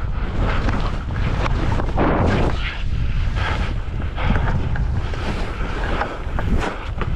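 Wind buffeting the microphone at skiing speed, over the hiss and scrape of skis running on snow, with short clatters throughout.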